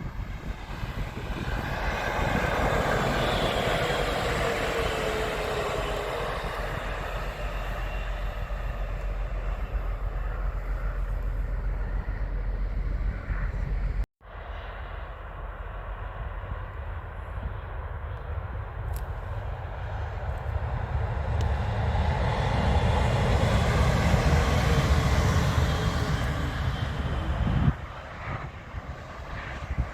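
Trains passing at speed: a steady rolling rumble with a whine that falls in pitch. It cuts off abruptly about halfway through, and a second train's pass-by, heavier in the low rumble, builds up and cuts off near the end.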